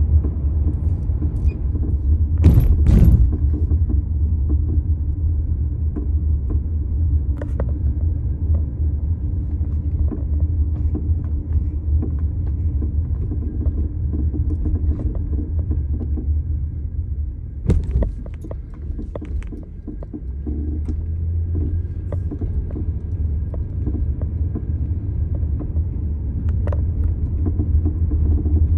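A 1999 Lexus LS400 on the move, with a steady low rumble and scattered clunks and knocks from the suspension. Two loud clunks come about two and a half seconds in and another comes near 18 s. The owner puts the noises down to the suspension: clunking, a spring compressing and a loose part.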